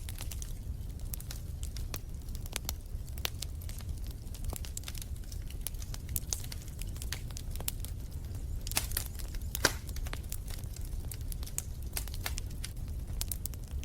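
Wood fire crackling in a fireplace: irregular sharp pops and snaps over a low, steady rumble, with a couple of louder pops about two-thirds of the way in.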